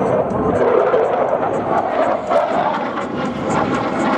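An F-35A's single Pratt & Whitney F135 afterburning turbofan making a sustained, loud jet roar as the fighter flies past during its display.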